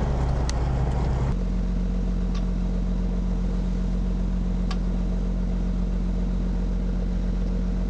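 Boat engine running steadily, its note shifting slightly about a second in, with a few faint clicks.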